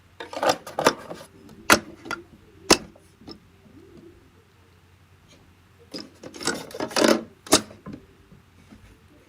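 Plastic parts of a coffee machine, its drip tray and bin, being handled and slid into place. Rubbing scrapes and sharp clicks come in two spells a few seconds apart.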